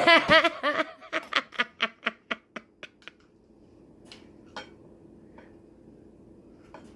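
A woman laughing: a loud burst that breaks into a run of short breathy pulses, about four a second, trailing off over about three seconds. After it comes a faint steady hum with a few light clicks.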